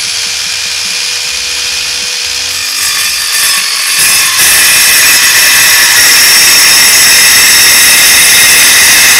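Eastwood mini metal saw running, then cutting through 3/16-inch by 2-inch metal stock. The motor whines steadily at first, then grows louder and harsher as the blade bites into the metal about three to four seconds in, and it holds a steady cutting sound through the rest of the cut. The blade goes through really easily.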